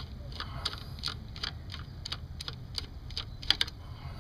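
Small hand ratchet clicking as it backs out the 7 mm hold-down bolt of a coil-on-plug ignition coil: a run of sharp clicks, a few a second and irregularly spaced.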